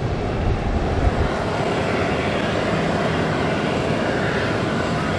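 Jet engines of an Airbus A340-313 running at low taxi power: a steady rushing hum. A heavy low rumble drops away about a second in.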